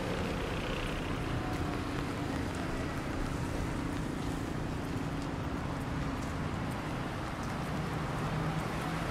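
Road traffic on a rain-wet highway: vehicle engines humming nearby over a steady hiss of tyres and rain.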